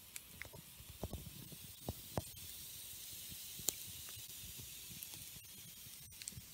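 Wood campfire burning: scattered crackles and pops from the logs over a soft hiss, with one sharper pop a little past halfway.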